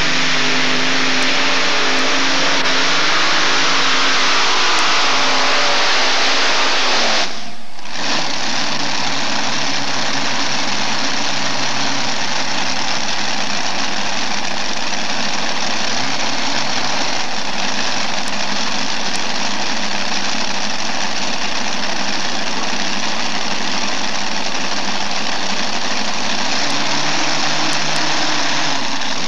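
Unlimited modified pulling tractor's engines running loud and steady on a pull. The sound cuts out briefly about seven and a half seconds in, then the engine noise goes on.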